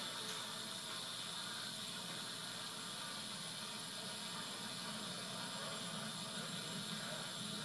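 A steady hiss, the background noise of an old videotape recording of a motocross race, with a faint, low, even rumble beneath it and no distinct engine note.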